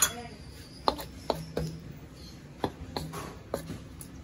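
A wooden spatula stirring a coconut-milk stew in a large metal wok, knocking against the pan's sides and bottom in several irregular taps.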